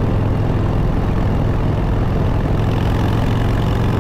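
A 2021 Harley-Davidson Breakout's Milwaukee-Eight V-twin running steadily under way, through aftermarket exhaust pipes, heard from the saddle while cruising.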